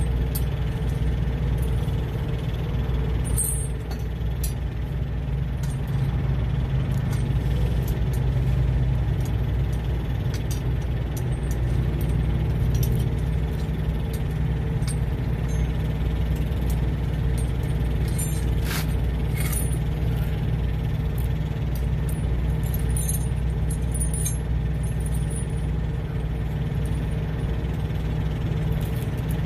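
Steel snow chains clinking and rattling now and then as they are fitted by hand onto a truck's inner dual tire, over a truck engine idling steadily.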